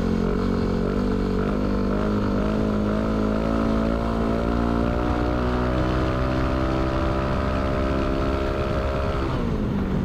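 Yamaha Aerox 155 scooter's single-cylinder engine running through a K'RACE standard-racing aftermarket exhaust while being ridden: the pitch climbs over the first few seconds, holds, then falls away near the end. The exhaust note is round and bassy.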